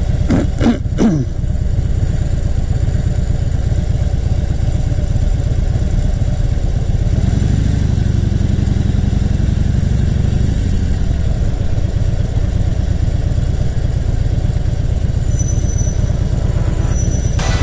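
Harley-Davidson Fat Bob's V-twin engine idling, then pulling away and accelerating about seven seconds in before settling to a steady cruise.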